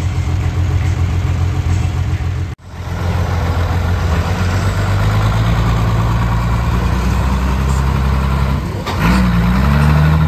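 A Pro Stock pulling tractor's single-turbo diesel engine running steadily at low revs, with a brief break in the sound a little over two seconds in. About nine seconds in the engine revs up and holds at a higher pitch, louder.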